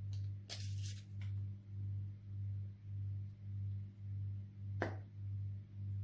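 A low hum that swells and fades about every half second, with a couple of short, sharp clicks over it.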